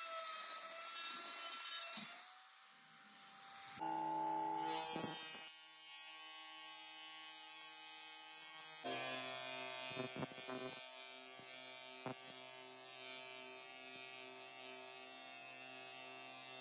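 A power grinder grinding the steel of a hammer head. A few seconds in it gives way to the steady hum of a polishing motor, and about nine seconds in the hammer head is pressed against the spinning buffing wheel, adding a hiss of polishing.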